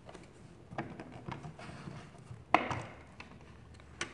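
Plastic housing of a soldering station being handled and its top cover pulled off, with light clicks and rattles, a sharp knock about two and a half seconds in and another near the end.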